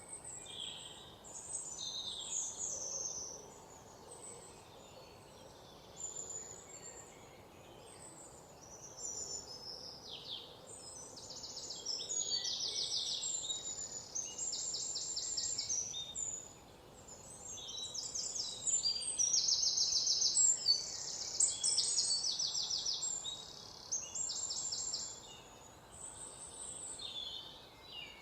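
Forest ambience: several songbirds singing over a faint steady hiss. The phrases overlap and include high, rapid trills, and the singing is busiest and loudest about two-thirds of the way through.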